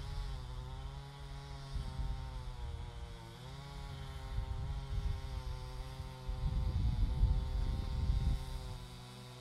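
A motor running at a steady pitch, dipping briefly about three seconds in, over a low rumble.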